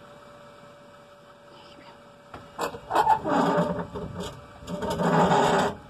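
Stock Jeep Wrangler JL Rubicon's underside scraping and grinding on rock as it crawls down a boulder step, in two loud rough stretches starting about two and a half seconds in.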